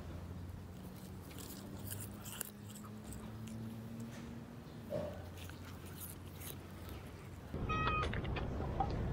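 A cat chewing grass: a run of small, crisp clicks and crunches over a low steady hum. About seven and a half seconds in, this gives way to louder street traffic noise.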